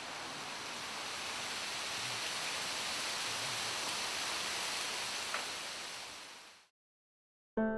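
A steady rushing noise with no tones in it, fading out about six and a half seconds in; after a short silence a piano chord strikes right at the end.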